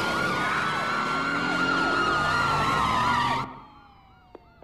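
Police car sirens wailing, several overlapping, over a low rumble. About three and a half seconds in the sound cuts off sharply, leaving one fainter siren tone sliding down in pitch.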